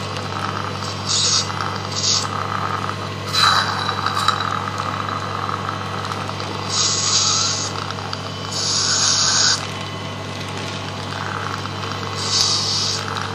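Dental surgical suction hissing in about six short bursts, the longest lasting about a second, as its tip draws blood and air from a fresh extraction socket, over a steady low hum.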